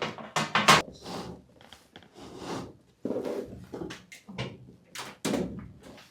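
Irregular knocks, clunks and scrapes of hard parts being handled as a ceiling bathroom heater is taken apart, the loudest knocks in the first second.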